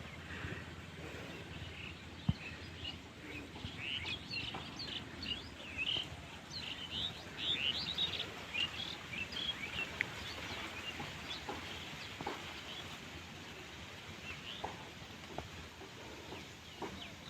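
Small birds chirping, many short quick calls overlapping, busiest in the first half and thinning out later, over a steady low background hum with an occasional single knock.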